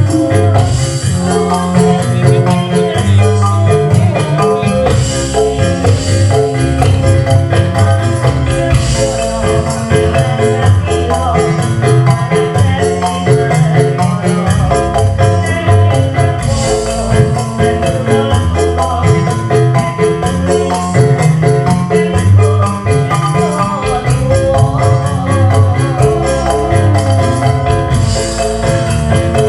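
Live Javanese gamelan music playing a srepegan: metallophones ring a repeating melody over a steady drum beat.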